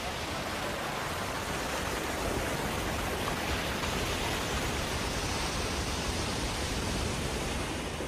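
Ocean surf breaking and churning over rocks, a steady rush of white water that swells a little louder through the middle.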